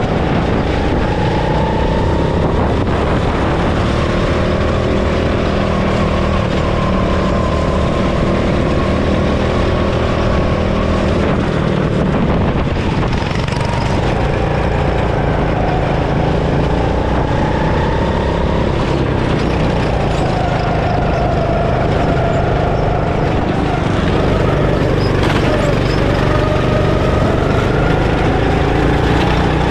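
Go-kart engine heard on board, revving up along the straights and dropping in pitch as the kart slows for corners, several times over: notably about twelve seconds in and again near twenty-five seconds.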